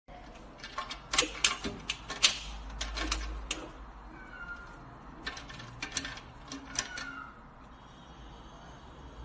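A wire cage rattling and clicking as a kitten leans and paws against its bars, in two bursts of quick clicks and knocks, with a few faint short squeaks.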